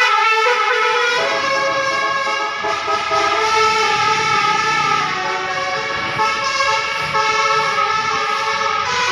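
Basuri multi-tone 'telolet' bus air horn playing a melody: several horn tones sounding together, held and stepping from note to note.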